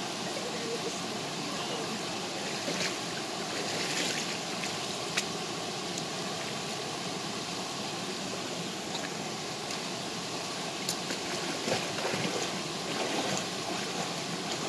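Steady rush of a small waterfall and stream pouring into a pool, with a few short sharp sounds from a person moving in the water.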